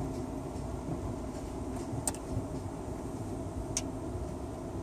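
2018 Ford Explorer idling, a steady low rumble heard inside the cabin, with two short sharp clicks along the way.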